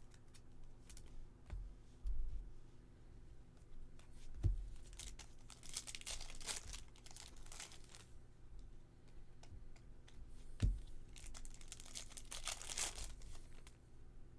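Foil wrappers of baseball card packs being torn open and crinkled, in two stretches of a few seconds each, with a couple of soft knocks as cards are set down.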